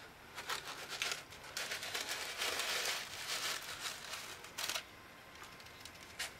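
Tater tots with onion and bell pepper poured from a bowl onto a hot, oiled steel flat-top griddle, sizzling and crackling, loudest in the middle, with a few sharp clicks of the bowl and food on the plate.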